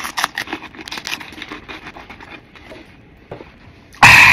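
Wet mouth sounds of a man licking and sucking a candy tube, a string of small irregular clicks and smacks. Near the end a sudden much louder noisy outburst cuts in.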